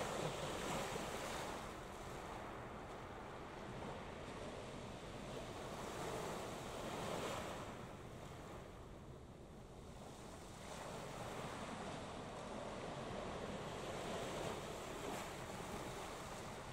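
Wind on the microphone and waves washing at the shore, a steady rushing noise that swells and eases every few seconds.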